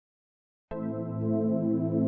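Background music: ambient music with long held chords, starting abruptly about two-thirds of a second in after a moment of silence.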